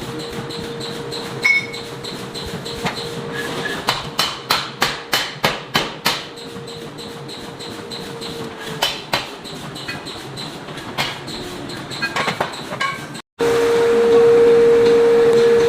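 Air hammer (power forging hammer) striking hot metal: a quick run of about eight blows, several a second, with scattered single strikes before and after, over a steady machine hum. After a sudden cut near the end, a louder steady hum.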